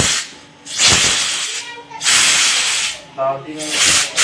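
Compressed-air blow gun blasting air through a small carburettor jet in repeated hissing blasts, each about a second long with short gaps between. The air is clearing dirt from the jet's fine holes after a petrol wash.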